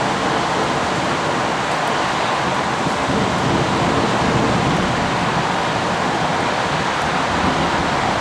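Heavy storm rain falling in a dense, steady hiss, with no separate hail strikes standing out.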